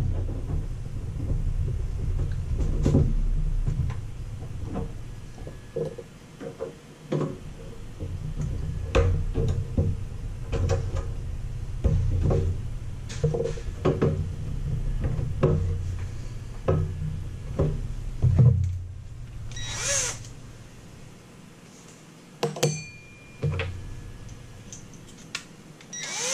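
Scattered clicks, taps and scrapes of hands working at the feet of a sheet-metal toaster oven case, over a low hum. About twenty seconds in a cordless drill-driver whirs briefly, and again right at the end.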